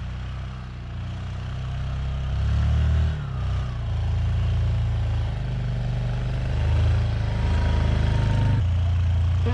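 2007 Yamaha Kodiak ATV's engine running under load as it pushes deep snow with its front plow, revving up about two seconds in and easing off, then getting louder as the quad comes close.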